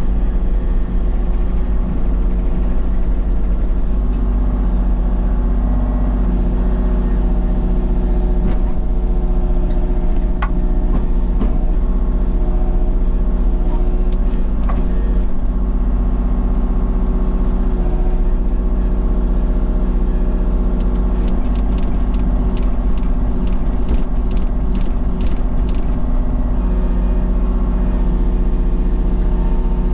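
Engine of heavy earth-moving equipment running steadily under work, with a run of light clicks and rattles about two-thirds of the way in.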